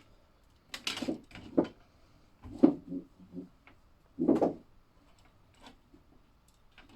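A stool being kicked out of the way: a handful of knocks and scrapes over several seconds, loudest about two and a half and four seconds in.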